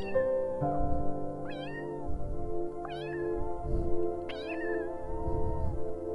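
A young animal's short, high-pitched cries, four in a row about a second and a half apart, each rising and then falling in pitch, over steady background music.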